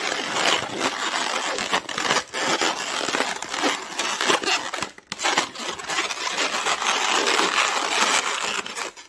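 Inflated 260 latex modelling balloons rubbing against each other and against the hands as the petals of a balloon tulip are pressed and tucked into shape. The result is a dense, continuous rubbing noise full of short scrapes, with a brief pause about five seconds in.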